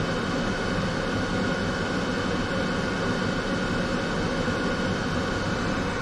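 Steady fan noise with a faint high whine, from the camper's air conditioner and the cooling fans of a portable power station while it charges.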